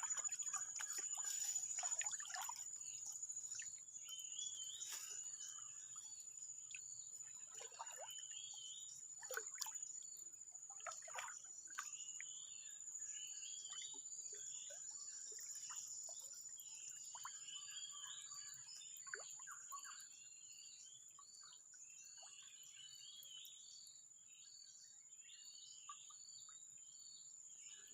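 Tropical outdoor ambience: a steady high insect drone under repeated short chirping calls. Scattered small splashes, drips and knocks, mostly in the first half, growing fainter.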